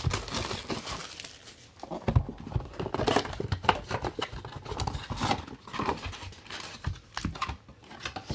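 Trading cards and pack wrappers being handled: irregular crinkling and rustling with small knocks and taps throughout.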